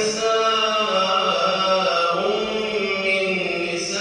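A man reciting the Quran in a slow, melodic chant, drawing out long held notes that bend gently in pitch, with short breaks between phrases.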